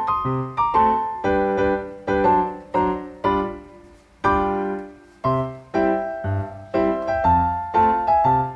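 Background piano music: notes and chords struck about twice a second, each fading away, with a brief pause near the middle.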